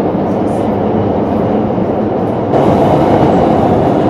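Subway train running, heard from inside the carriage as a steady rumble and rush. About two and a half seconds in, the noise gets louder and brighter.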